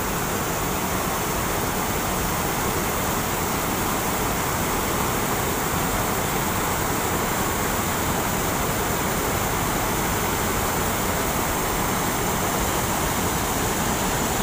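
Steady rushing of a fast river over rocks and a weir: an even, unbroken hiss of water.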